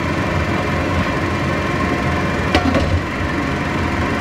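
Water boiling in a stainless steel wok under a wire steaming rack: a steady rushing noise with a low hum. A single metal clink comes about two and a half seconds in as the glass lid is set on the wok.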